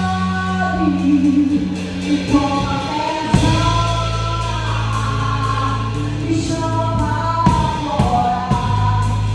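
Live gospel band playing, with a sung melody over long held bass notes and a few drum and cymbal hits.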